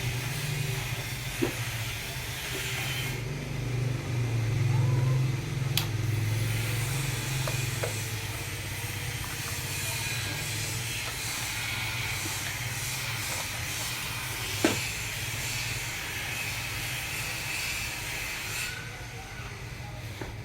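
Huina 1569 RC bulldozer's electric drive motors and gearing running with a steady low hum that swells about four to seven seconds in, over a hiss, with a few sharp clicks.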